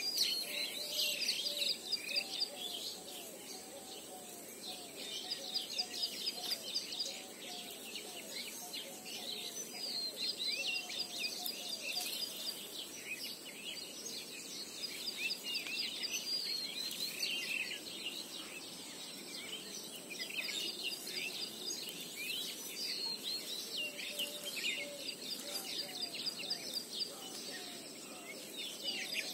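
Several birds chirping and singing in quick, overlapping trills and calls, with a thin steady high tone underneath.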